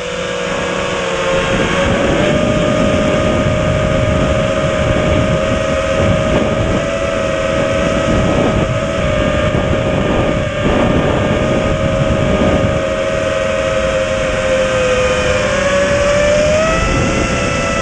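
A small racing drone's electric motors and propellers whining at a nearly steady pitch that wavers slightly, over a rough rumbling noise.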